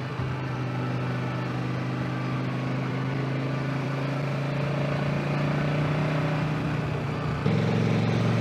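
Motorcycle engine running at steady revs while riding, under road and wind noise. About seven and a half seconds in, the engine note steps up suddenly in loudness, as with the throttle opening.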